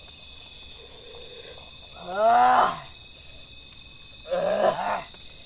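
Two drawn-out wordless vocal exclamations from men who have just sipped coffee, the first about two seconds in and the second near the end, each falling in pitch. A steady high-pitched insect chorus runs underneath.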